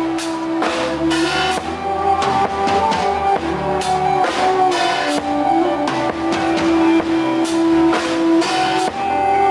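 Band music with drum kit, guitar and bass, steady beat with cymbal strokes.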